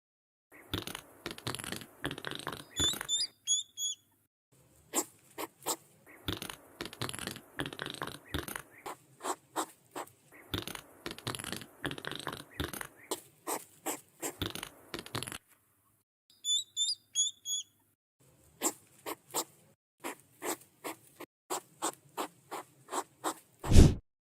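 Hedgehog huffing and clicking in rapid runs of short sharp puffs, in several separate bouts with brief pauses between them. A few small high chirps come in twice.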